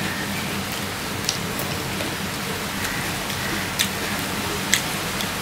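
Steady hiss of rain falling, with a few short clicks of chewing.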